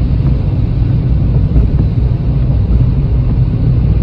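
Steady low rumble of engine and road noise heard inside the cabin of a car cruising at about 50 km/h.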